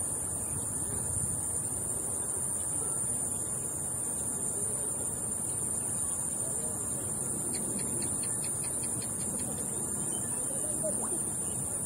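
Steady high-pitched chorus of insects over a low, uneven rumble of wind.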